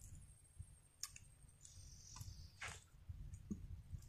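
Faint mouth sounds of a person eating cooked snakehead fish: a few sharp clicks, and a short sucking sound that falls in pitch around two seconds in, over a low rumble.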